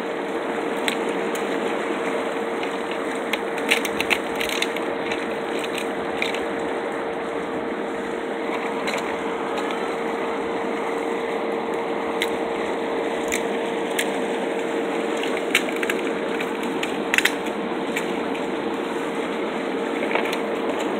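Scattered sharp clicks and cracks as crabs and their shells are handled in a plastic cooler, over a steady hiss with a constant hum.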